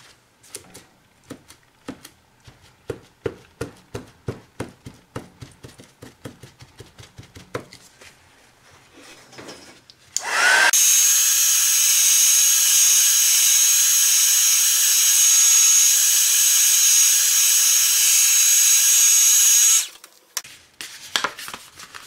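Soft dabbing taps and paper rustles, then about ten seconds in a craft heat tool switches on with a short rising whine and blows steadily with a high whine for about nine seconds, drying the ink on the canvas, before cutting off.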